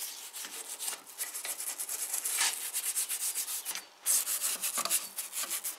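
Toothbrush bristles scrubbing the top of a Porsche 944 camshaft housing in rapid back-and-forth strokes, a dry scratchy hiss that pauses briefly just before four seconds in, then resumes.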